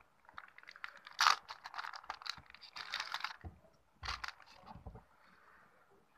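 Crinkling and crackling of a small clear plastic bag as a mobile phone battery is pulled out of it, in irregular bursts, loudest just over a second in. A few duller handling knocks follow around four seconds in, then it goes quiet.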